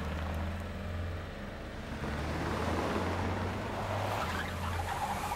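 Taxi driving along, heard from inside the cab: a steady low engine hum with road noise that swells a little in the middle. A held higher tone comes in near the end.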